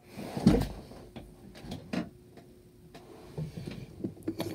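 Handling and movement noise close to the microphone: a heavy thump about half a second in, another knock near two seconds, then a scatter of short clicks and knocks toward the end, over a faint steady hum that stops about three seconds in.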